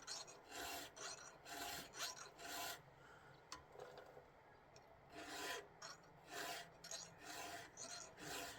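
Chainsaw chain being hand-sharpened with a round file: a faint, steady series of rasping file strokes across the cutter teeth, about one to two a second, pausing for about two seconds near the middle before resuming.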